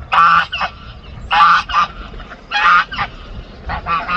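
Domestic waterfowl calling loudly: four loud calls about a second apart, then a quicker run of short calls near the end.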